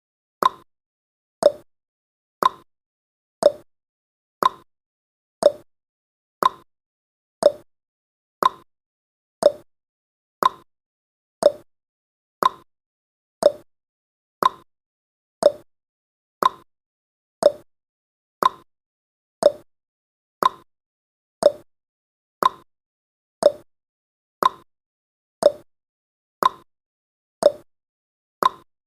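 Clock tick-tock sound effect of a countdown timer, one sharp tick each second, alternating between a higher and a lower tick.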